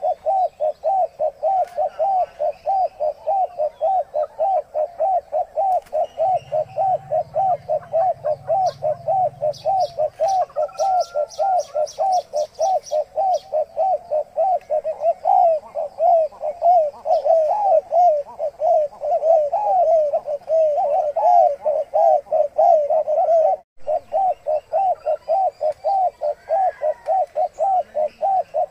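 Spotted doves at a nest making a continuous, even run of short low notes, about three or four a second, with one brief break about two-thirds of the way through.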